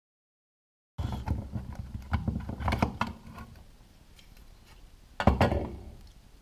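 Handling noise: after a second of dead silence, a quick run of sharp clicks and knocks lasts about two seconds and then fades to faint rustling. One louder knock comes about five seconds in.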